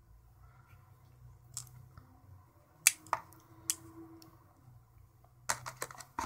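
A folding knife with aluminium handle covers being handled, giving a few scattered sharp clicks and taps, with a cluster of clicks near the end.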